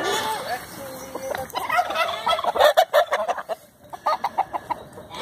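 Chickens clucking and a turkey gobbling. A fast rattling run of calls comes about two seconds in, and a shorter one near the end.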